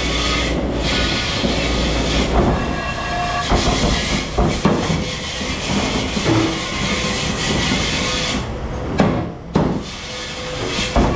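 Steady running noise of a commercial dish machine, with a hissing spray and scattered clatter of dishes and racks.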